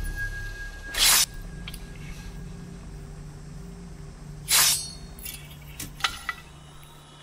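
Katana sword-fight sound effects: two sharp metallic swishes of a blade being drawn and swung, about a second in and again about four and a half seconds in, then a few light metal clinks near the end, over a low steady music drone.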